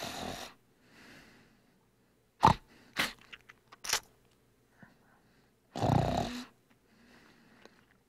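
A person snoring: two loud rough snoring breaths, one at the start and one about six seconds in, each followed by a fainter breath, with a few short, sharp snorts in between.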